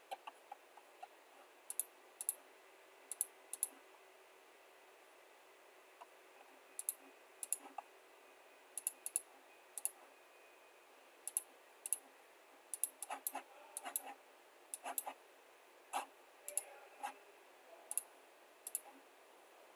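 Computer mouse clicking at irregular intervals, many of the clicks coming in quick pairs, over a faint steady hiss.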